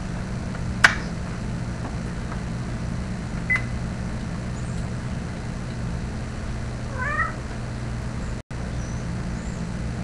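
African grey parrot calling a few times over a steady low background rumble: a sharp squawk about a second in, a short whistle a few seconds later, and a wavering, warbling call around seven seconds.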